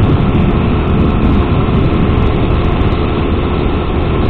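Steady wind rush over a helmet-mounted mic while riding a Sinnis Max 2 motorcycle, heaviest in the low end, with the engine running steadily and softly underneath.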